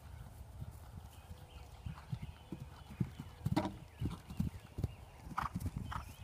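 Horse cantering on grass turf, its hooves thudding in a stride rhythm, with a louder, sharper impact about three and a half seconds in as it lands over a small jump.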